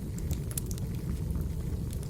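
Firewood burning, with a steady low rumble of the flames and many scattered sharp crackles and pops.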